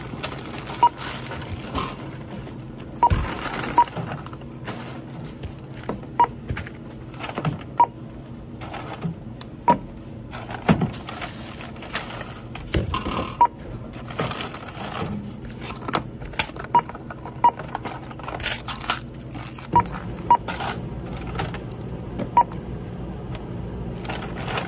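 Checkout barcode scanner beeping as items are scanned: about a dozen short, single-pitch beeps at irregular intervals, amid the clatter and rustle of items being handled and bagged.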